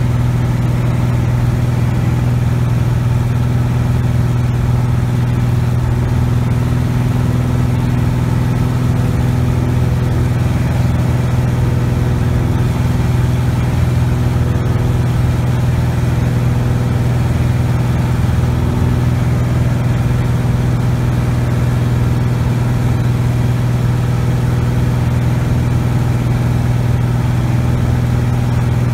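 Cessna 180 Skywagon's six-cylinder Continental O-470 engine and propeller running steadily in flight, a constant low hum heard from inside the cockpit.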